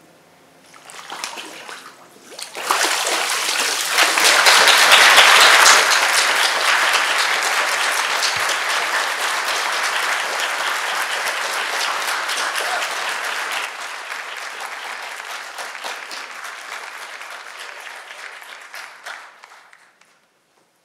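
A short splash of water from a baptismal tank. Then a congregation applauding: the clapping swells about three seconds in, is loudest for a few seconds, then slowly thins and stops just before the end.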